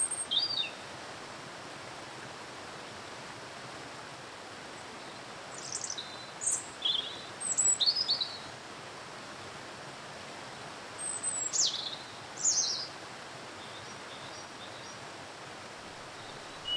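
Birds chirping in short, high calls that slide downward, in bursts near the start, again about six to eight seconds in, and around eleven to thirteen seconds, over the steady rush of a waterfall.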